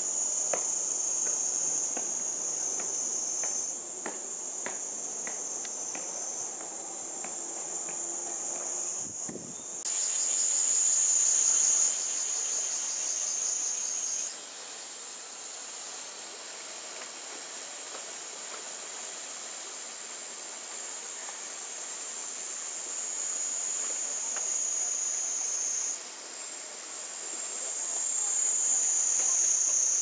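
Cicadas in summer chorus: a continuous high-pitched buzz that swells and fades, growing loud about ten seconds in and again near the end.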